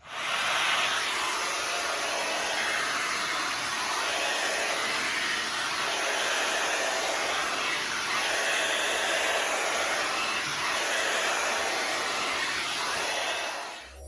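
The Knot Dr. blow dryer running steadily on its low setting, a constant rush of air that swells slightly every few seconds as it is worked through hair. It stops near the end.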